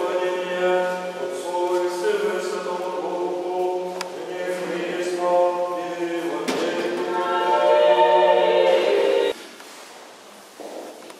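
Church choir singing Orthodox liturgical chant a cappella, several voices holding sustained chords. The singing cuts off abruptly about nine seconds in, leaving faint church room noise.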